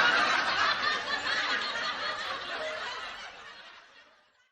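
Laughter from a group of people, a dense mass of laughing that fades out gradually to silence near the end.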